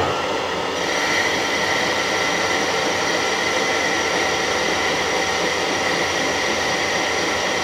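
Harrison 140 metal lathe running under cut, its turning tool taking a cut on a half-inch silver steel bar. The running is steady, and a steady high-pitched tone comes in about a second in.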